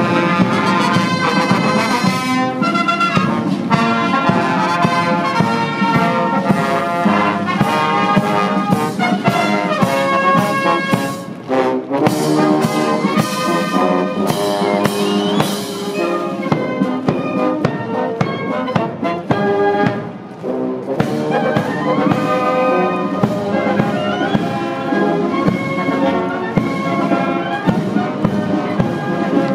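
Military marching band playing a march on brass instruments, with a steady drum beat.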